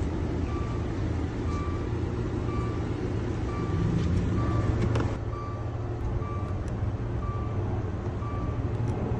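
A 2015 Dodge Dart's warning chime beeping steadily, one short tone about every second, over a steady low hum, with a single click about five seconds in.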